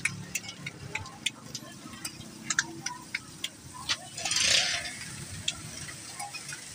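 Flat metal spatulas clicking and tapping on a large iron griddle of frying shami kababs. A louder burst of sizzling comes a little after four seconds in.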